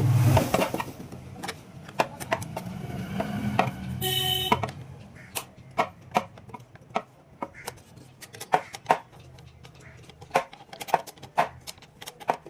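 Irregular clicks and taps of hand work with tools and small parts, over a low steady hum for the first few seconds. A short beep-like tone sounds about four seconds in.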